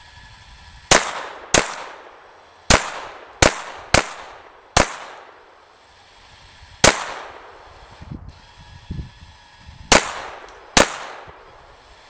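A Ruger SR22 .22 LR semi-automatic pistol firing nine shots at an irregular pace: a quick run of six in the first five seconds, then single shots about two, three and one second apart. Each crack is followed by a short decaying echo.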